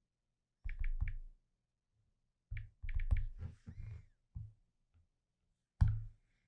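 Fingertips tapping on a tablet's touchscreen keyboard: quick dull taps in three short runs, with pauses between.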